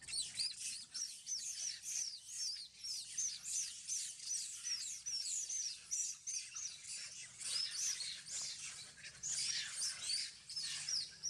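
A rapid, continuous run of high-pitched animal chirps, several a second, overlapping one another.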